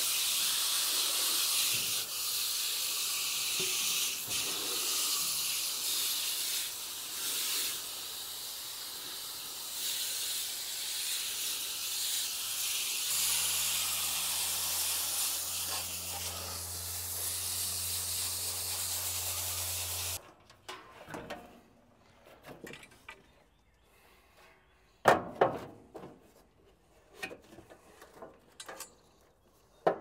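Hose-end sprayer with its mixing dial set to B, spraying a steady hiss of water and diluted coil cleaner onto a heat pump's outdoor coil. The spray stops abruptly about two-thirds in. After it come scattered clicks and knocks, one of them loud.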